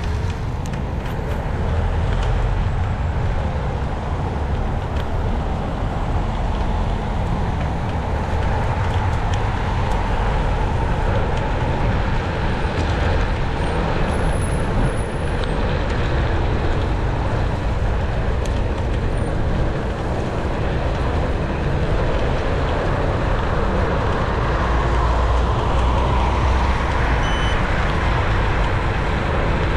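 Steady road and traffic noise with a low rumble, heard from an e-scooter riding along city streets as vehicles pass.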